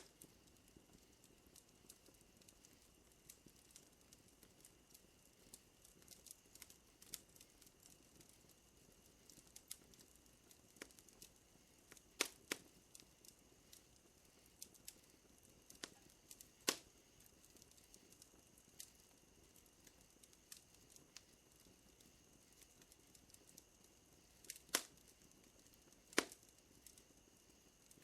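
Wood fire crackling softly, with scattered small pops and a handful of sharper, louder snaps, two near the middle and two near the end. Under it runs a faint, steady, high-pitched drone of night insects.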